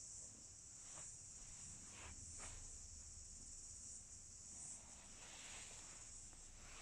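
Near silence: a steady high hiss, with a few faint soft rustles about a second in and around two seconds in.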